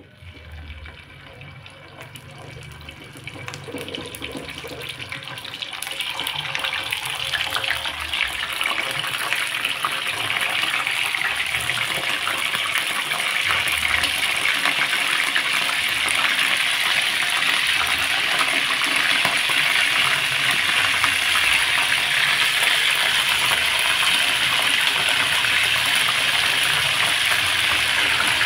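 Wet chicken pieces, simmered beforehand in a turmeric spice broth, sizzling and crackling as they fry in hot oil in a frying pan. The sizzle builds over the first ten seconds or so as more pieces go in, then holds steady and loud.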